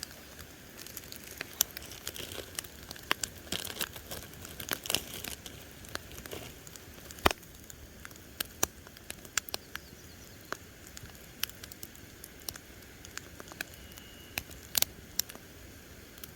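Campfire crackling: irregular sharp pops and snaps over a faint steady hiss.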